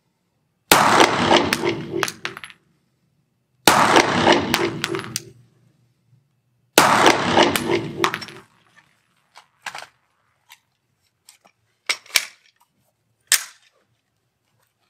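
Three strings of 9 mm pistol shots from a Glock 17 Gen 4, each ringing in the enclosed indoor range, about three seconds apart. Then a few scattered metallic clicks and clacks as the pistol is handled, the last two near the end the loudest.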